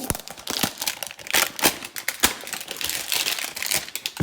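Crinkling and rustling of trading-card packaging being handled, with an irregular run of small clicks and taps.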